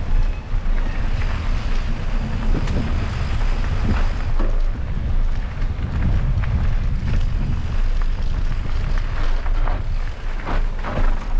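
Wind buffeting the microphone as a mountain bike rides down a dirt trail, with tyres rolling over rough ground and scattered clicks and rattles from the bike.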